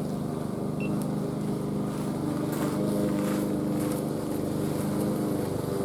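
Steady low hum of a running motor or engine, holding one pitch.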